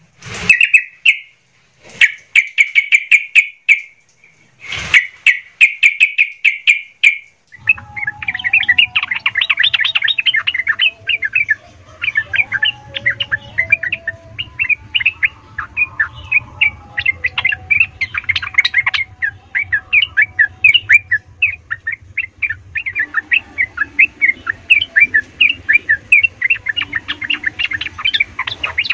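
Caged yellow-vented bulbuls singing hard in fast, chattering volleys of bright notes. The first stretch comes in short bursts with brief pauses. About 7 s in a second bird takes over with near-continuous rapid song over a faint low hum.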